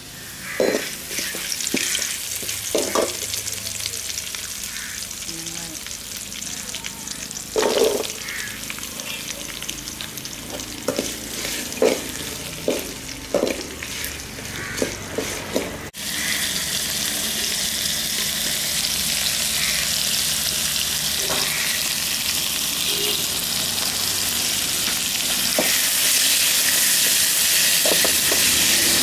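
Curry leaves and chopped onions sizzling in hot oil in a metal pot, with a perforated metal skimmer scraping and clinking against the pot as they are stirred. About halfway through the sizzle becomes louder and steadier.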